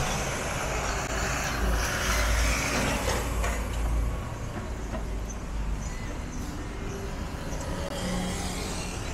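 City street traffic with a heavy vehicle passing: a deep engine rumble and road noise that are loudest for the first few seconds and fade after about four seconds, leaving steady street noise.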